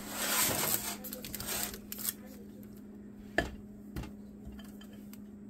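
Rustling and scraping as frosting is spread with a spatula over bars in a foil-lined pan: a rustle for the first couple of seconds, then two light knocks.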